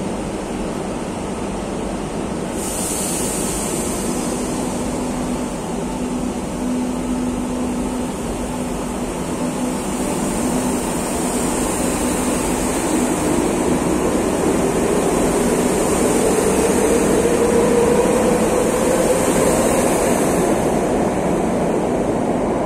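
Madrid Metro train pulling out of an underground station. A high hiss sets in a few seconds in over a steady hum, then about halfway through the traction motor whine rises in pitch as the train speeds up and runs away along the platform.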